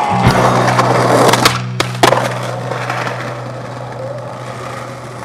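Skateboard wheels rolling over stone paving, with a few sharp wooden board knocks about one and a half to two seconds in. A steady low hum runs underneath and cuts off at the end.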